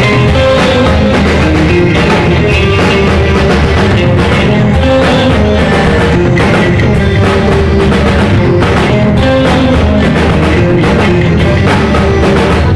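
Live rock band playing loudly: a drum kit with crashing cymbals and an electric bass guitar, the drums keeping a steady beat.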